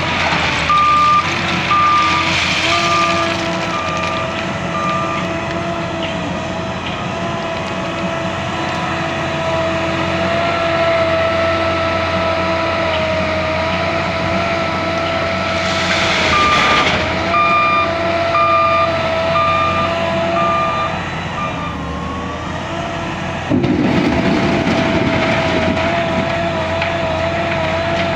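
L&T 9020 wheel loader's diesel engine running steadily, with its reversing alarm beeping twice in runs of a few seconds as the machine backs up. The engine note sags for a moment, then a louder, rougher sound starts suddenly near the end.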